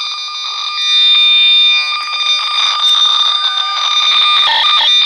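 Old electronic toy blaring a loud, shrill alarm-like electronic tone through its small speaker, stuttering with many short breaks.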